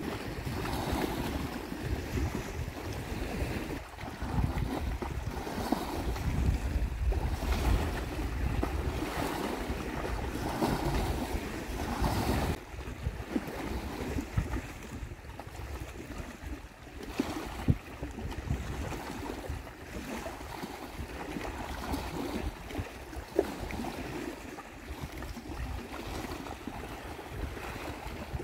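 Wind gusting on the microphone, with water lapping at a rocky shore.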